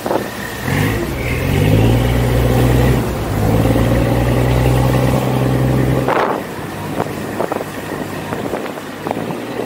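Tour boat's engine running under way. Its pitch climbs about a second in, holds steady, then the engine sound falls away about six seconds in.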